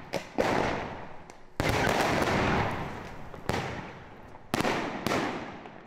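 Aerial fireworks going off: about six sharp bangs at uneven intervals, each trailing off slowly before the next.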